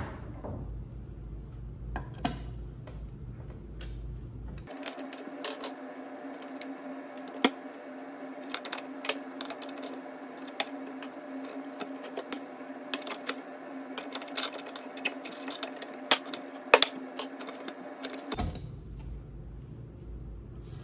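Hand tools prying and scraping the broken remains of an old center drawer guide off the back of a drawer: a fast run of clicks and knocks over a steady hum, starting about five seconds in and stopping a couple of seconds before the end.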